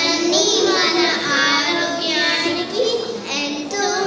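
A group of children singing a song together, held notes moving step by step in a simple melody.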